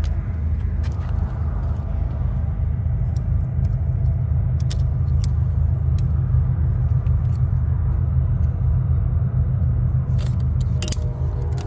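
An engine running steadily at idle with a low hum, with a few light clicks and clatters of handling over it.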